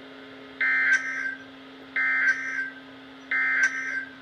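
NOAA Weather Radio SAME header: three identical short bursts of warbling digital data tones, about a second and a third apart, over a steady low hum. The coded header announces the alert that follows, here an Amber Alert.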